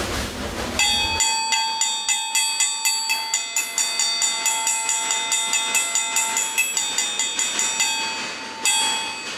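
Station bell, a hanging metal gong, struck rapidly with a hammer at about three to four ringing strikes a second, with a short break near the end before the strikes start again. This is the signal of an arriving train.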